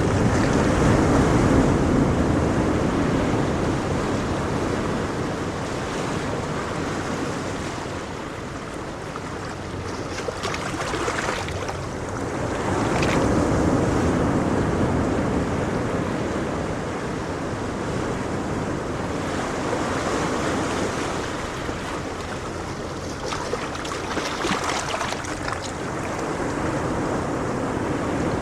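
Ocean surf: waves breaking and washing ashore in a continuous rush that swells and fades every several seconds, with a brief hiss of spray at a few of the crests.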